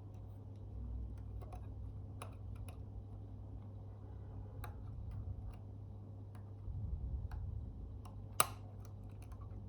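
Scattered light clicks and taps of small hand tools working on a camera, with one sharper click about eight and a half seconds in, over a steady low hum.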